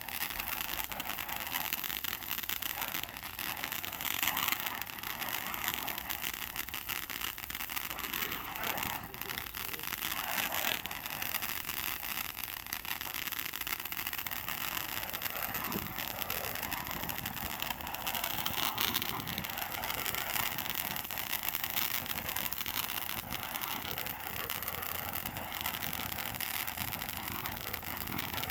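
Handheld Statue of Liberty torch firework burning: a steady spraying hiss of sparks with fine crackling.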